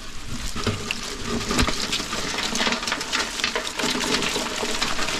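Live crawfish and water tumbling out of an upended wire-mesh crawfish trap into a galvanized metal tub of crawfish: a dense, steady crackle of many small clicks and clatters.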